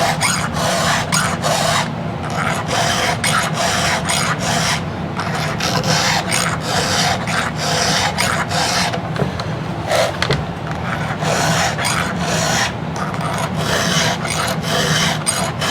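Hand file rasping across the cutting teeth of a chainsaw chain in short, even strokes, about two to three a second, over a low steady hum: sharpening a new chain that has gone slightly dull from cutting dirty wood.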